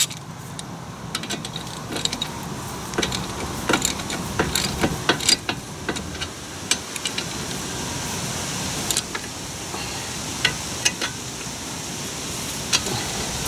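Irregular sharp metallic clicks and clinks of a wrench working the caliper bracket bolts on a Toyota Camry's front brake as they are tightened snug, over a steady outdoor hiss.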